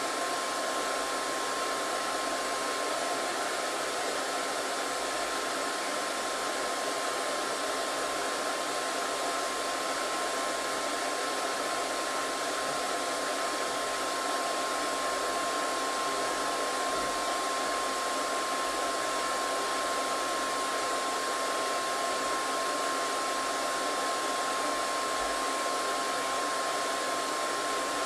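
Hair dryer running steadily: an even rush of blown air with a thin, steady whine from its motor.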